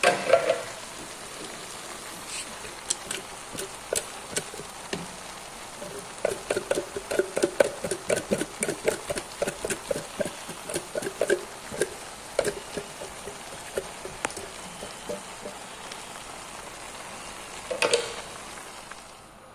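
Steady sizzle of shrimp and canned jackfruit cooking in a pot on the stove. In the middle a can is emptied into the pot, making a run of quick glugs, a few per second, for several seconds. A short knock comes at the start and another near the end.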